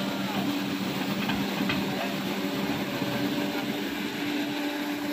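Hydraulic excavator's diesel engine running steadily as the bucket works in wet mud, over the rush of water pouring through a breach in an earthen dam. Two light clicks about a second and a half in.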